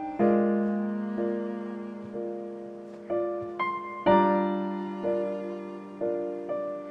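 Slow solo piano music: single notes and chords struck roughly once a second and left to ring and fade.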